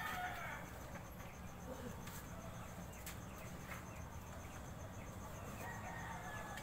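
Faint outdoor ambience with a low steady hum and scattered small chirps and ticks. A distant rooster crows faintly near the end.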